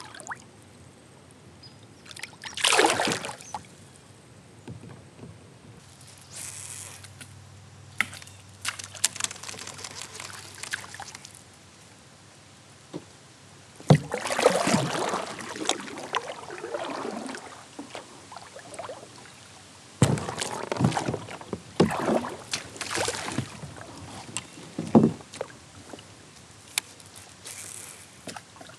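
Water sloshing and splashing around a kayak, paddle or hand in the water, with scattered knocks and handling noises on the boat. The louder stretches come about three seconds in, around the middle, and again past two-thirds of the way.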